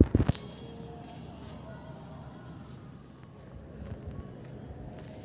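Crickets chirping, a steady pulsing high trill. A few loud thumps come right at the start.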